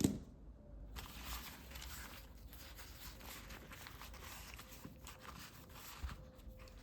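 Faint rustling and a few light taps of small objects being handled, as one kit item is put away and the next taken out of a small pouch.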